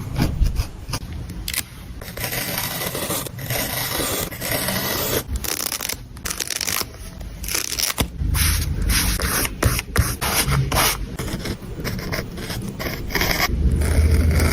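Close-miked paper and stationery handling during journal collage work: irregular scraping and rustling strokes of paper on a desk, with a few low knocks near the middle and the end.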